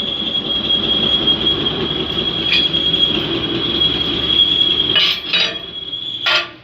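Metal repair work on a steel excavator bucket: a steady, high-pitched whine over a rough noise that cuts out about five seconds in, followed by a few sharp metal clanks.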